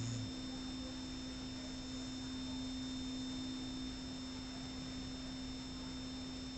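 A steady low hum with a faint hiss in a pause between a shar pei's snores. The end of one snore trails off right at the start.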